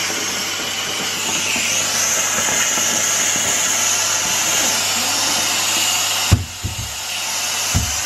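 Vax steam mop running, a steady hiss as it is pushed over floor tiles. About six seconds in there is a knock and the hiss drops away briefly before building again.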